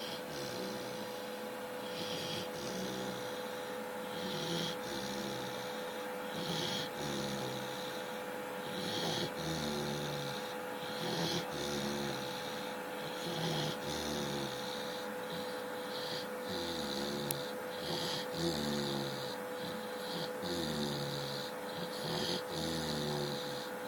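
A chow chow dog snoring in its sleep in a steady rhythm, a breath about every two seconds. Each breath has a low, pitched snore and a hissing breath sound. A steady hum runs underneath.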